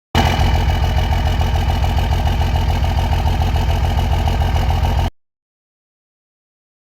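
Diesel truck engine idling with a steady, even low pulse, cut off abruptly about five seconds in.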